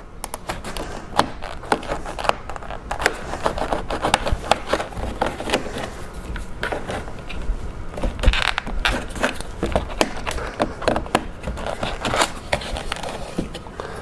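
Plastic trim pry tool scraping and clicking against the plastic interior mirror cover of a BMW F10 front door, with many irregular small snaps and ticks as the cover is pried loose.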